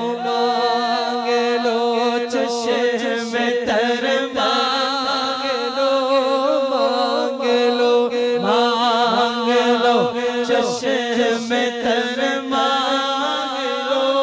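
Devotional naat singing: a voice holds long, wavering melismatic notes without words, over a steady sustained drone.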